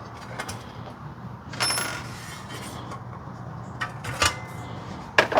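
Small metal clinks and clicks from case screws and a steel panel being handled. One clink a little over a second and a half in rings briefly, and more clicks and a short clatter come near the end.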